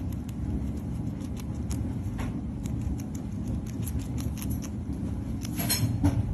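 Guinea pigs chewing romaine lettuce: a quick run of small, crisp crunching clicks, with one louder crunch near the end, over a steady low rumble.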